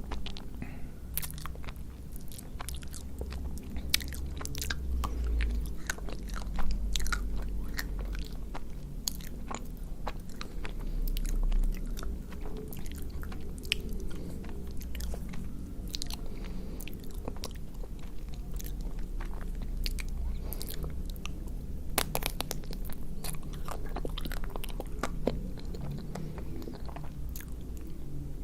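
Close-miked eating of a chocolate-coated ice cream bar: bites cracking the chocolate shell, then chewing with many small sharp crunches.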